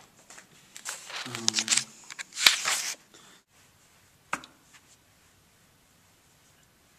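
Irregular rustling and handling noises for the first few seconds, then a single sharp click a little after four seconds in, then quiet.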